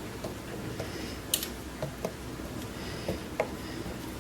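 Homemade pasta-dough crackers being turned over on a baking tray: a scatter of light clicks and taps, one sharper click about a second and a half in, over a steady low hum.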